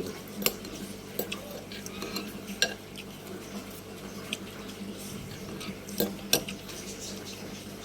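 Kitchen utensils clinking and scraping against pots and bowls, with scattered light clinks and a few sharper knocks: one about half a second in, one a little past two and a half seconds, and two close together around six seconds.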